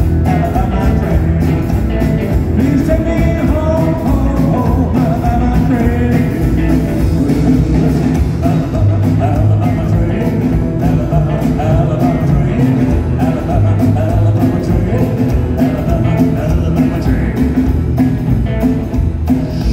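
Live rockabilly band playing amplified through a PA: double bass, drum kit and electric guitar with a steady beat, and a man singing.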